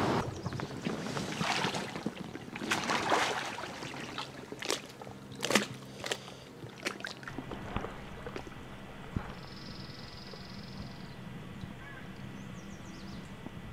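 Water splashing and sloshing in irregular strokes as a person in a drysuit wades into a shallow creek pool and lies face-down. About seven seconds in, this gives way to a steady, muffled hiss heard underwater.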